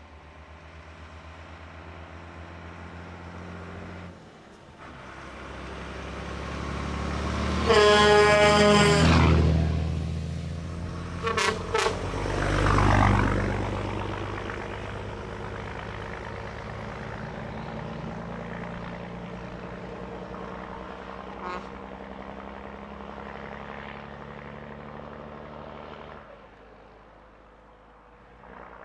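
Scania 93M trucks with open exhaust pipes driving past: the engine note builds, then a long air-horn blast sounds about eight seconds in, its pitch dropping slightly as the truck passes. Two brief toots follow, the engine is loudest as it goes by close, then fades steadily as the trucks drive away.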